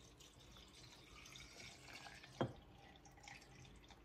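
Liquid poured faintly from a small glass container into a large glass jar of herbs and citrus slices, with one sharp tap about two and a half seconds in.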